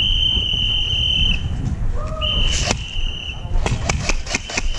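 A steady high-pitched tone held for about a second, twice, then a rapid run of sharp cracks, about six a second, from airsoft guns firing.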